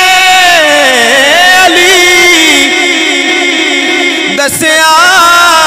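A man singing a devotional Punjabi kalam into a hand microphone: one amplified voice drawing out long, ornamented notes that waver and slide in pitch. He breaks off briefly about four and a half seconds in, then takes up a new held note.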